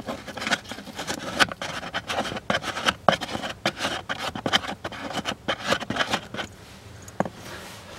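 A plastic wing nut is turned off by hand from the felt-backed trim panel under a car's glovebox. It makes irregular small clicks, with fingers rubbing on plastic and felt. This dies down after about six and a half seconds, and one sharper click comes near the end.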